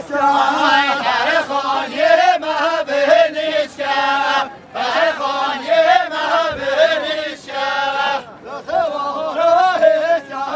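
A group of men's voices singing a Kurdish folk song for halay dancing, unaccompanied, in sung phrases with short pauses between them.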